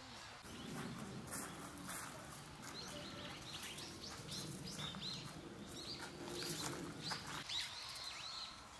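Birds chirping over and over in short, quick calls, over a low steady background rumble that fades near the end.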